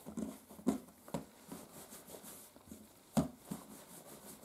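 Hands rolling a piece of bread dough back and forth on a kitchen countertop: soft irregular taps and rubbing, with the loudest knock about three seconds in.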